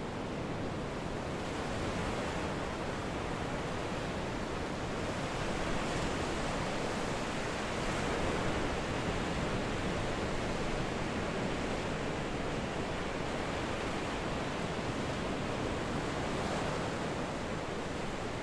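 Ocean surf washing onto a sandy beach: a steady rush of noise that swells gently a few times.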